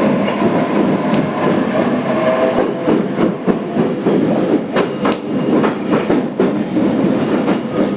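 Onboard running noise of a JR Kyushu 817 series 3000 subseries electric train, heard inside a motor car: a steady rumble with the wheels clicking irregularly over rail joints.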